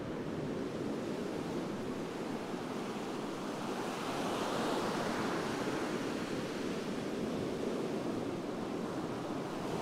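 Ocean surf breaking and washing onto a sandy beach, a steady rushing noise that swells a little about halfway through, with some wind on the microphone.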